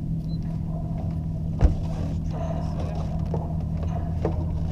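A steady low hum on board a sailboat, with one sharp knock about a second and a half in and a few faint clicks after it.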